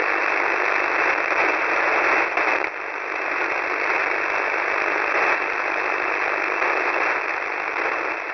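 Shortwave radio static: a steady hiss from a receiver tuned to 4310 kHz, squeezed into a narrow voice-width band, with a brief dip in level about three seconds in.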